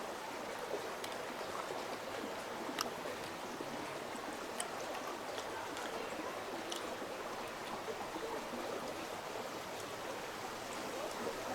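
Steady rush of running water, like a stream flowing, with a few faint ticks scattered through it.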